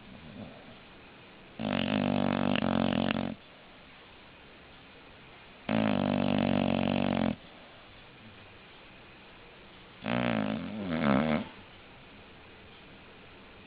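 English bulldog snoring: three loud snores about four seconds apart, each lasting about a second and a half, the last one wavering in pitch.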